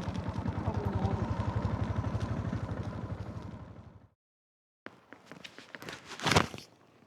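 Honda GB350's single-cylinder engine running with an even, rapid thump, fading out about four seconds in. After a brief gap comes scattered clattering with one louder knock near the end.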